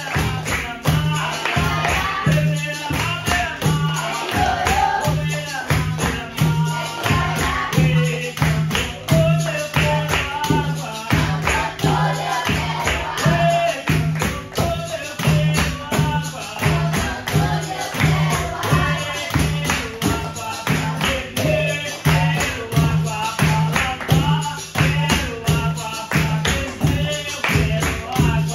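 Capoeira roda music: a group sings over a steady beat of pandeiros, clapping hands and a berimbau, keeping an even pulse throughout.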